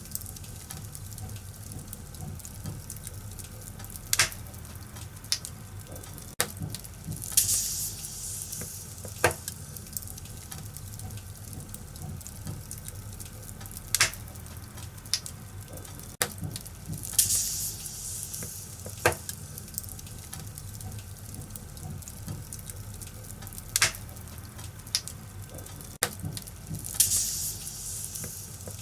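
Wood fire in a fireplace crackling steadily, with a dozen or so sharp pops and a short burst of hissing about every ten seconds.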